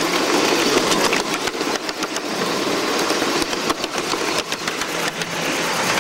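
Ride-on live steam Shay locomotive running along the track, a steady mechanical clatter of its engine and running gear with frequent irregular clicks from the wheels on the rails.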